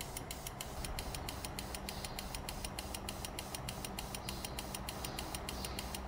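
Diesel AdBlue (DEF) injector pulsing during a dosing test, spraying into a plastic jug in rapid, evenly spaced hisses over a steady low hum. The injector has just been cleaned of crystallised AdBlue, and its spray pattern is improving.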